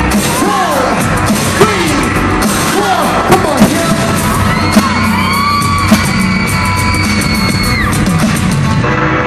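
Live pop music played loud over a concert sound system with a steady beat, while the audience yells and whoops in short falling calls. A long, high held scream rises above it from about the middle of the clip.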